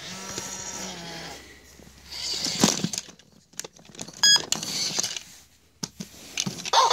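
Tekno robot Dalmatian toy's small gear motors whirring as it moves, a steady hum at first, then broken whirs and clicks, with a brief high electronic beep a little after four seconds.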